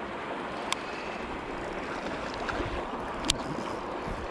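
Steady rush of water churning out of a spillway, with two short sharp clicks, one under a second in and another about three seconds in.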